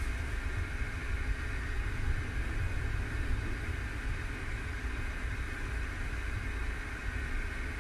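Steady low rumble and hum inside the passenger saloon of a 1963 Düwag GT6 tram standing still, with street traffic outside.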